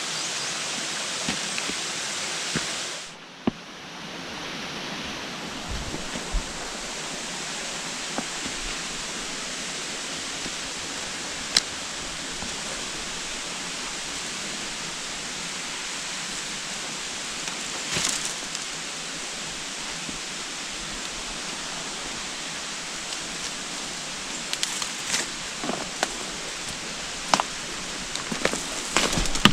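Waterfall rushing steadily. The rushing dips briefly about three seconds in, and scattered small clicks come through it, more often near the end.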